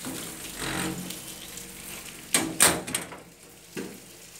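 A door being handled and shut, with two sharp knocks a little past halfway and a smaller one near the end. The steady hiss of rain behind it thins out once the door is shut.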